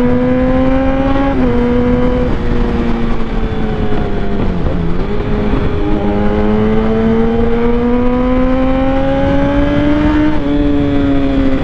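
Motorcycle engine pulling in third gear: its pitch climbs, eases off around the middle as the throttle is rolled back, climbs steadily again, then drops near the end as the throttle closes. A steady rush of wind noise runs underneath.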